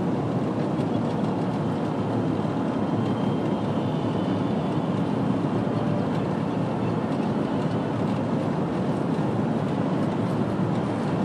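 Steady road and engine noise heard inside a moving car's cabin.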